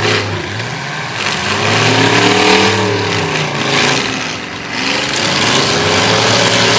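Several demolition derby cars' engines running and revving, their pitch rising and falling over and over as they manoeuvre.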